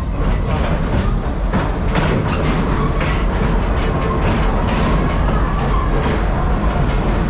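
Park passenger train rolling along, heard from aboard: a steady low rumble with the clickety-clack of wheels over the rail joints.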